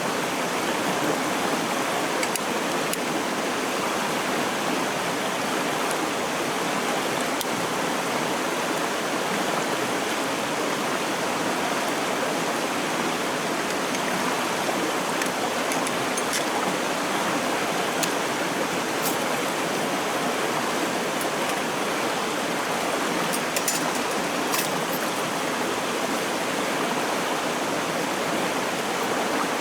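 A clear stream flowing, a steady rush of water, with a few faint high clicks about three quarters of the way through.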